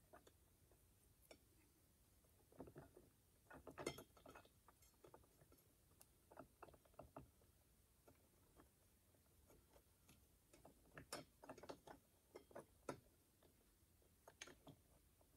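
Near silence broken by faint, scattered clicks and light taps of metal transmission parts being handled and fitted together during reassembly of a VW 010 automatic transmission, in small clusters with the loudest taps about four seconds in and again near the two-thirds mark.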